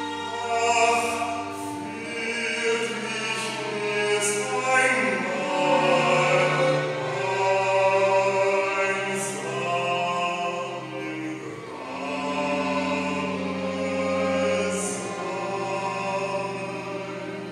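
A classical male voice singing a German art song, accompanied by a string quartet of two violins, viola and cello, with long held notes.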